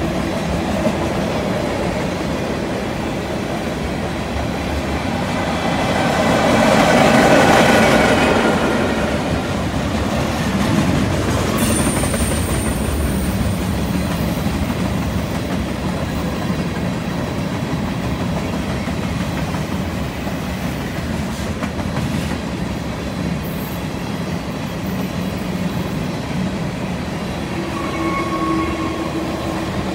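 Freight train cars (tank cars, hoppers and gondolas) rolling past on a curve, with the steady rumble and clatter of wheels on rail. Wheel squeal from the curve rises over it, loudest about seven seconds in, with a thin high squeal around twelve seconds and a fainter one near the end.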